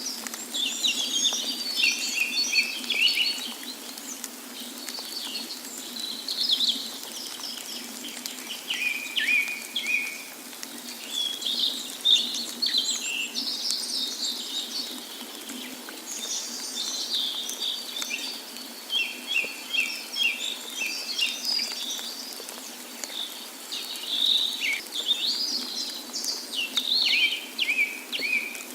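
Several birds chirping and singing in quick repeated trills, one after another throughout, over a steady rushing hiss of falling water from a waterfall.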